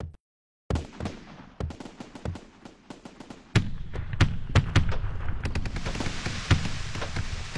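Computer-simulated fireworks show: aerial shells bursting as a string of sharp separate bangs. About three and a half seconds in it gets denser, with a steady crackling hiss from ground-level fountains and comets under frequent reports.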